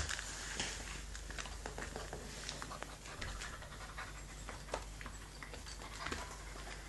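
German Shepherd puppy panting softly, with faint scattered clicks and rustles.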